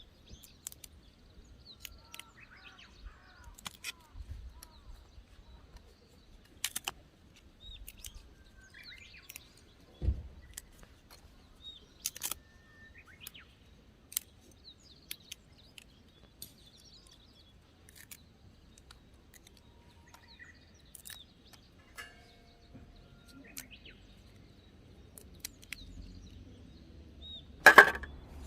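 Small birds chirping and tweeting, with scattered sharp clicks and knocks. A louder clatter comes near the end.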